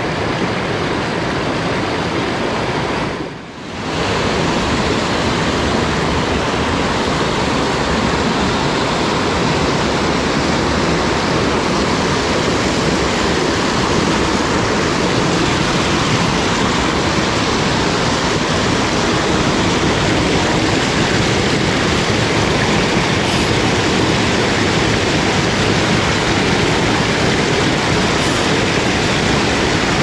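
Steady, loud rush of a mountain stream running over rocks and small cascades close by, briefly dropping away about three and a half seconds in.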